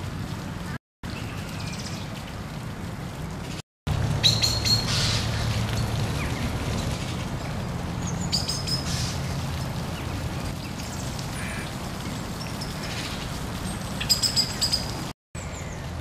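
Hissing, crackly old film soundtrack with a low hum that cuts out to dead silence a few times, made to sound damaged. Short high bird-like chirps come through three times over the hiss.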